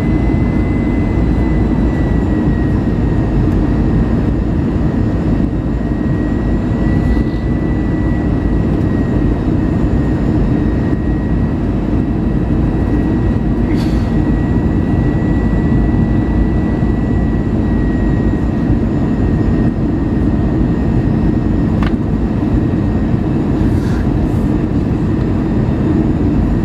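Airbus A320 cabin noise on approach to landing: the steady roar of air and engines heard from a window seat by the wing, with a thin steady whine running through it. A few faint clicks come through late on.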